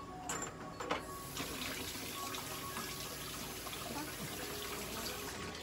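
A steady rushing hiss of running water that starts about a second and a half in and cuts off shortly before the end, after a few light knocks.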